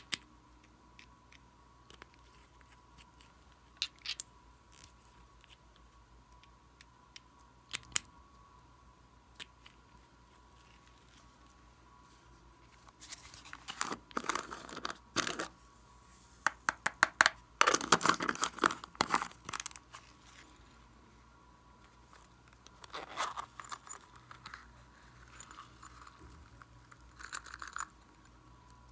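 Small plastic bottles and a container being handled over a bowl of slime: a few scattered clicks of caps, then bursts of rattling and crinkling as glitter, beads and sprinkles are shaken out, about halfway through and again near the end.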